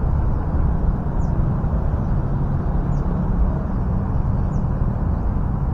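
Steady low outdoor rumble, with a faint short high chirp that falls in pitch about every second and a half.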